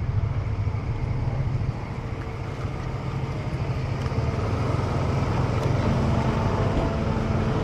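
Motor scooter running on the move, a steady engine hum with road noise. It grows gradually louder from about two seconds in.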